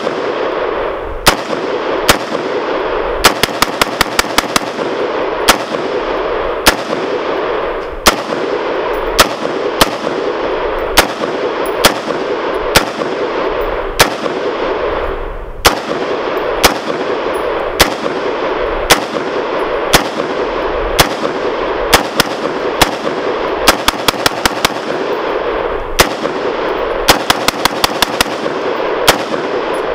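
Semi-automatic AR-15 rifle firing a long series of shots from a Magpul D-60 60-round drum magazine. Single shots about a second apart alternate with quick strings of four to six, each shot echoing briefly. The rifle keeps feeding without a stoppage, running flawlessly.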